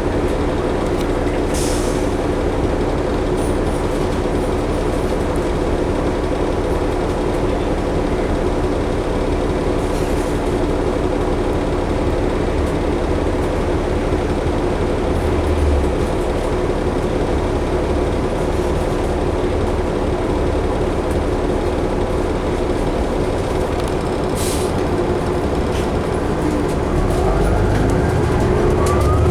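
Cabin noise of a 2011 New Flyer D60LFR articulated diesel bus under way: steady engine drone and road noise. Near the end the level rises a little and a rising whine comes in as the bus speeds up.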